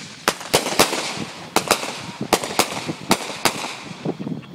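Fireworks going off: about ten sharp cracks and pops in quick, uneven succession with crackling in between, dying away in the last second.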